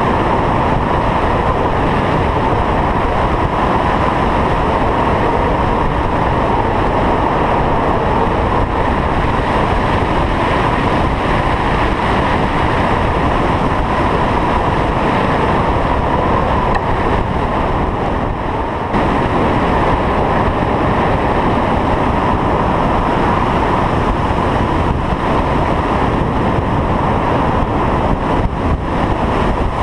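Steady rush of airflow over a GoPro mounted on a Litespeed RS 3.5 hang glider's wing in flight, with a faint steady whistle running through it.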